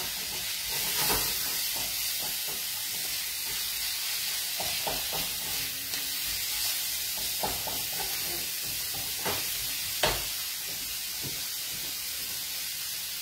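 Vegetables sizzling in oil in a frying pan on a gas stove, a steady hiss. It is broken by several short knocks and clinks of a utensil against the pan, the loudest about ten seconds in.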